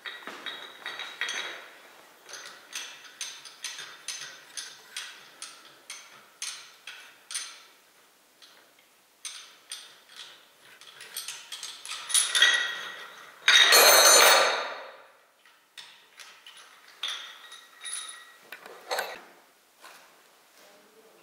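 Light metal clinks and knocks, several a second at times, as a cylinder liner and its fittings are handled against and into a tractor engine block's cylinder bore. About twelve seconds in there is a louder rushing burst lasting about two seconds.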